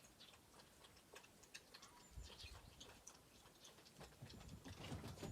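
Foxes running, their claws clicking faintly and irregularly with a few soft paw thumps.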